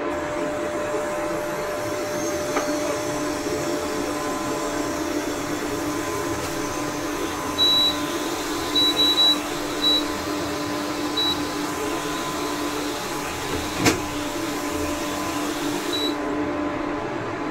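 Prestige induction cooktop running, its cooling fan giving a steady hum with a few held tones. About eight seconds in comes a run of short high beeps as the power-level buttons are pressed, with another beep near the end and a single sharp click in between.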